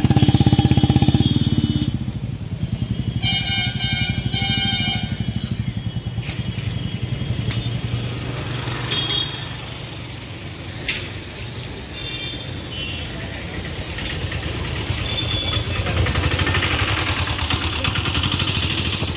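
A motor vehicle engine running close by, loudest in the first two seconds. A pulsing high tone sounds for about two seconds around three seconds in.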